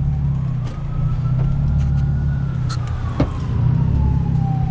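Straight-piped Hyundai Genesis Coupe 3.8 V6 running steadily at low revs, a deep low exhaust note. Behind it a faint siren-like wail slowly rises and falls, and there is one short click about three seconds in.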